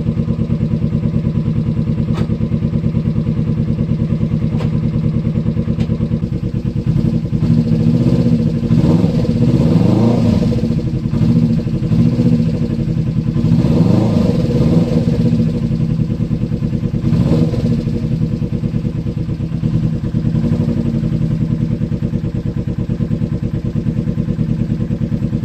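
Kawasaki Eliminator motorcycle engine running, just started after restoration. It idles steadily, is revved up and back down several times in the middle, then settles back to idle.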